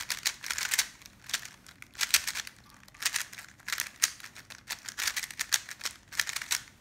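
GAN Air SM speedcube being turned rapidly by hand: quick flurries of plastic clicks and clacks, a few layer turns at a time with short pauses between, as the cube is scrambled.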